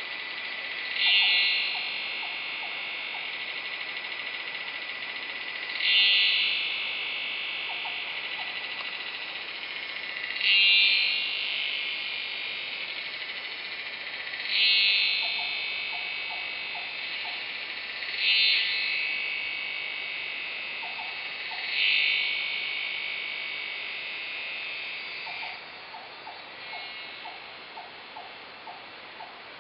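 A forest insect, which the recordist takes for a cicada-like species, calling nonstop with a piercing, metallic buzz that swells louder about every four seconds. The buzz fades out near the end, leaving rows of short lower clicks.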